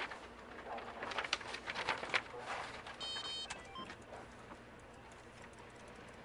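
Paper being handled at a desk: crisp rustles and small clicks, busiest in the first two seconds, then a short high-pitched tone about three seconds in, and after that quiet office room tone.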